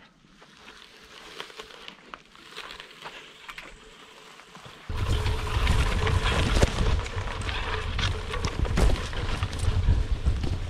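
Footsteps and rustling as someone walks through tall grass and wildflowers, with plant stems brushing the camera. About five seconds in, a loud low rumbling buffeting on the microphone starts suddenly and continues under the swishing vegetation.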